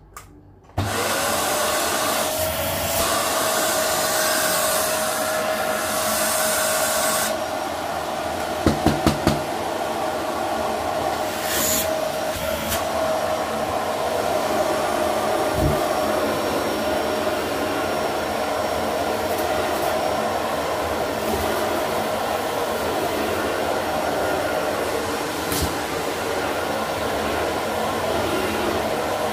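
Dyson vacuum cleaner switched on about a second in, its motor spinning up to a steady whine over loud rushing suction. A few quick sharp knocks come about nine seconds in. Near the end the nozzle is pulling dust and debris off carpet.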